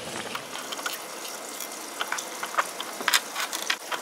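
Clicks and light rattles of AA batteries being fitted into the plastic battery compartment of a toy fishing-game board, clustered about three seconds in, over a steady rushing hiss.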